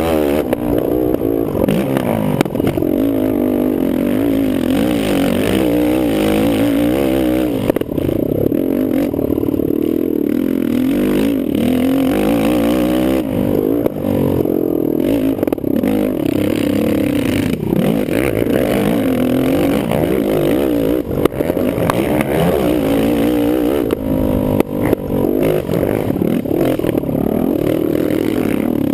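Kawasaki KFX450R quad's single-cylinder four-stroke engine racing, its pitch climbing and dropping again and again under hard throttle and gear changes, with some clatter.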